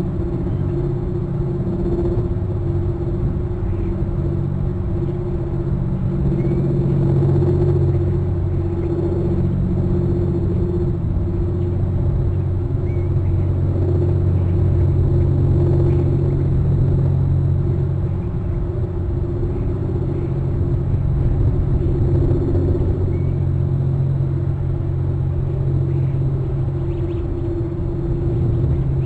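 A steady low droning rumble made of several held low tones, like a motor or equipment hum, with a few faint short high chirps scattered through it.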